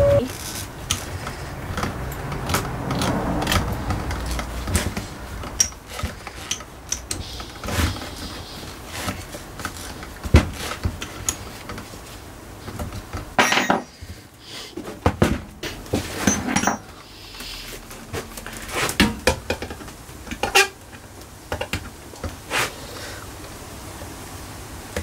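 Scattered metallic clicks, clinks and rattles of drill bits being handled in a plastic bit case and a larger bit being fitted into a corded drill's chuck.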